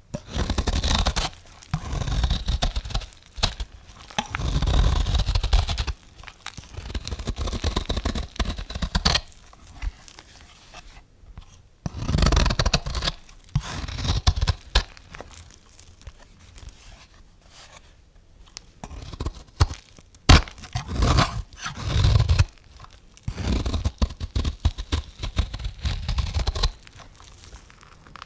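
A blade cutting through bars of soap, about a dozen cuts in a row. Each cut lasts one to three seconds, with short pauses between and a longer lull past the middle.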